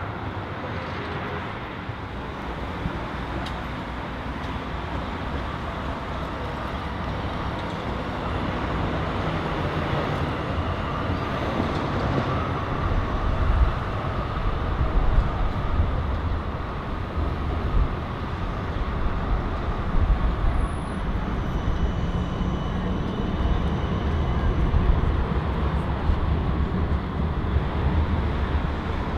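Busy city street traffic with Melbourne trams passing: a steady mix of car and tram running noise with a low rumble that grows louder from about halfway through as a Z-class tram and then a D-class Combino tram go by.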